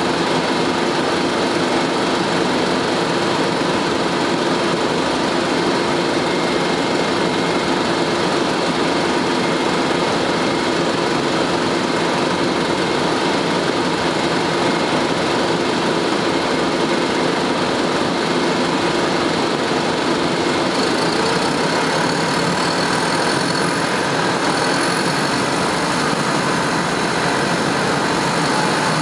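Detroit Diesel Series 50 four-cylinder diesel of a 1998 Nova Bus RTS transit bus, heard from on board, running steadily under the hum of the air conditioning. A little after two-thirds of the way through the sound shifts and a faint rising whine comes in.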